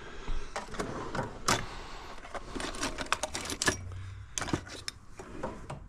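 Irregular light metallic clicks and ticks of a feeler gauge set being handled while checking intake valve clearance.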